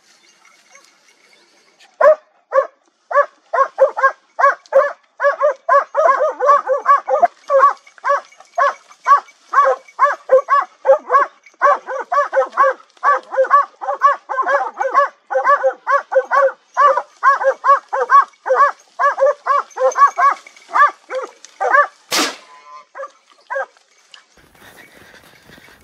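Hunting dogs barking in a fast, steady run, several voices overlapping at times. The barking starts about two seconds in and stops near the end. A single sharp gunshot cracks shortly before the barking stops.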